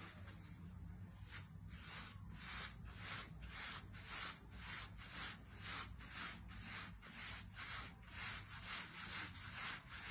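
Hands folding and rounding pizza dough on a floured wooden board: faint, rhythmic brushing and rubbing strokes, about three a second.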